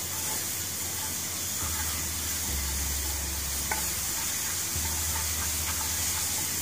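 Diced mushrooms and onion sizzling in oil in a non-stick frying pan while a wooden spatula stirs them: a steady frying hiss with a few light scrapes and taps of the spatula.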